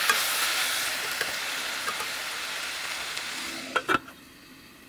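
Fenugreek leaves with onion and green chillies sizzling in hot oil in a stainless steel pan, with a few light taps of the spoon; the sizzle slowly fades as the leaves wilt. Near the end a metal lid clinks twice onto the pan and the sizzle drops away under it.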